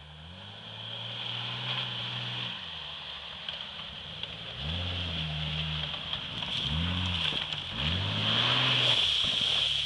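Jeep Cherokee XJ engine revving up and falling back four times as the 4x4 works over rough off-road ground, getting louder as it comes closer, with a rougher rushing noise near the end.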